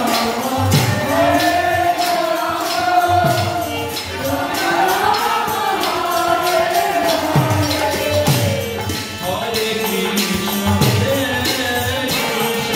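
Kirtan music: a lead singer chanting a melody over a harmonium, with a mridanga drum and jingling hand cymbals keeping a steady beat. Several deep drum strokes slide down in pitch.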